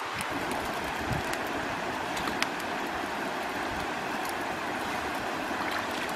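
Small wood campfire crackling, with scattered sharp snaps over a steady rushing hiss.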